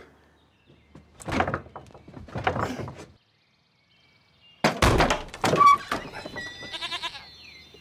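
Goat bleating, with a loud thud about five seconds in, then a further bleat near the end.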